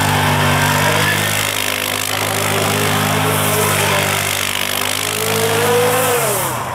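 Quad bike (ATV) engine held at steady high revs while the quad spins circles in snow. The revs climb a little near the end, then fall away just before the end.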